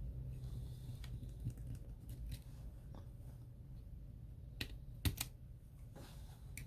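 Scattered light clicks and taps from handling an opened iPhone 7 and small repair tools, a few sharper clicks a little past halfway, over a low steady hum.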